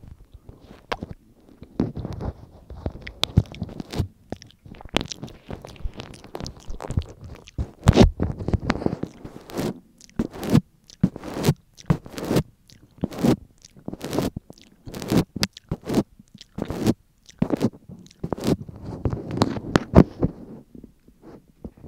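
Close-miked ASMR mouth sounds: wet licking and lip smacking on the microphone, a run of sharp irregular clicks and smacks.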